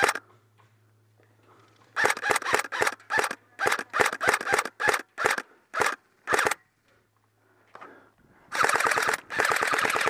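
Airsoft gun firing close to the microphone. It fires a string of single shots a few a second, then two rapid full-auto bursts near the end.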